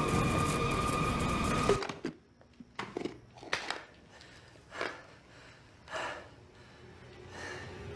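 A loud buzzing swarm of flies that cuts off abruptly about two seconds in, followed by a handful of short, sharp cracks in near-quiet.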